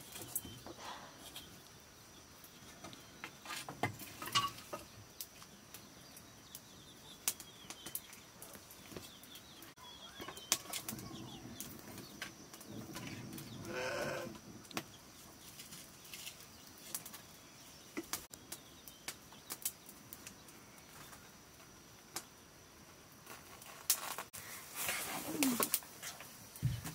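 Wood fire crackling faintly under a cooking pot on an open hearth, with scattered sharp clicks. A couple of brief animal calls come from the background, one midway and one near the end.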